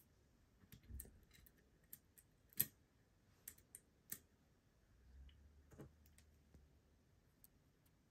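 Faint scattered clicks and taps of a 1:200 die-cast model airliner and its small plastic landing-gear bogie being handled, with one sharper click about two and a half seconds in.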